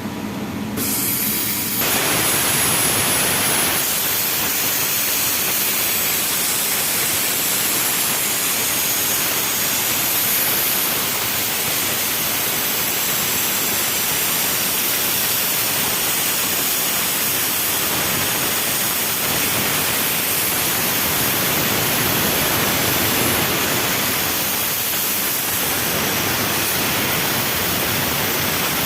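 CNC plasma cutter torch cutting: a loud, steady hiss of the arc and its air jet, coming up to full strength about two seconds in.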